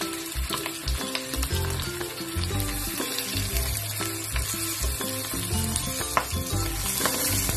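Milkfish pieces frying in hot oil in a pan: a steady sizzle with many small crackles and pops of spattering oil.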